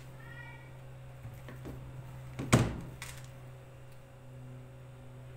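A few light knocks and one loud thunk about two and a half seconds in, from a wire potato masher and a metal cooking pot being handled, over a steady low hum.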